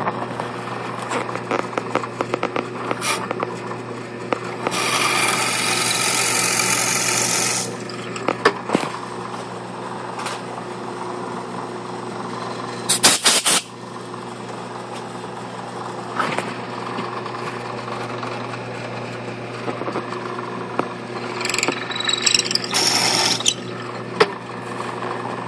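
Drill press running with a steady hum while its bit drills into a pen blank held in a vise. The cutting comes as loud hissing noise for about three seconds, starting about five seconds in, and again briefly near the end. Scattered clicks and a short clatter of knocks come about halfway through.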